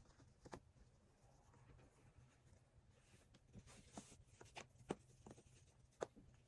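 Near silence: room tone with a low hum and scattered faint taps and clicks.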